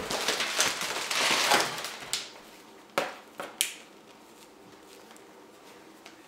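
Clear plastic air-cushion packing crinkling and rustling for about two seconds as a hand rummages in it, followed by three light knocks about three seconds in.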